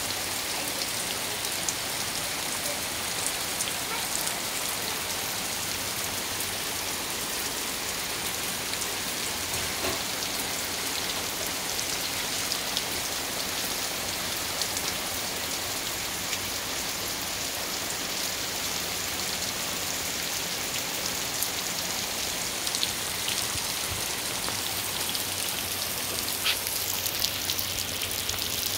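Heavy rain falling steadily on leaves and ground: an even hiss, with scattered close drops ticking now and then.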